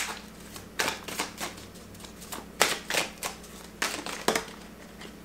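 A deck of tarot cards being shuffled and handled in the hands: irregular sharp card snaps and slaps in small clusters, with quieter rustling of cards between.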